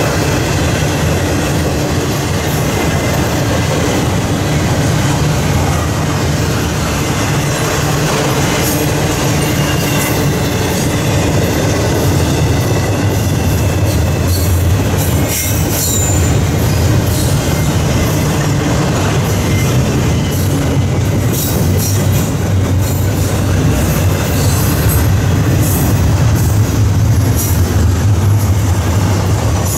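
Double-stack intermodal container train's well cars rolling steadily past: a continuous loud rumble of steel wheels on rail, with scattered clicks and clacks and a faint high wheel squeal now and then.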